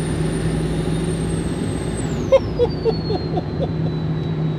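A 1999 Ford F350's 7.3-litre turbo diesel running on the road, heard from inside the cab: a steady engine drone under a high turbo whistle. About two seconds in, the whistle glides down in pitch as the turbo spools down.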